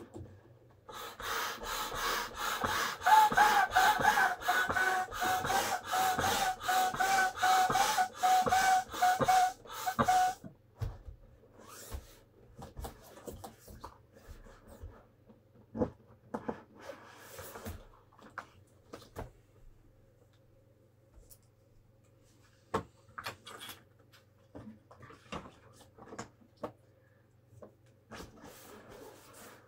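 Air being pumped into a large vinyl inflatable toy: a fast, even run of pump strokes, about two to three a second, with a squeaky whistle through them, stopping after about ten seconds. Scattered rustles and creaks of the vinyl being handled follow.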